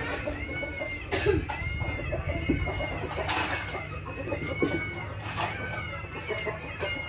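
Metal clicks and scrapes of a screwdriver working on the brush holder of a disassembled starter motor, against a steady low hum. Short high calls repeat about once a second throughout.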